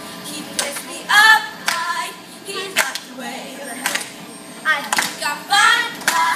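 Children's choir singing short sung phrases, with sharp hand claps scattered through.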